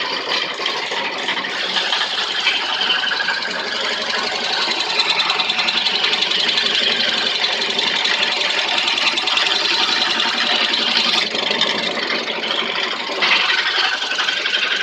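Carving machine running steadily, giving a dense, high machine noise. It dips briefly about eleven seconds in and changes character about two seconds later.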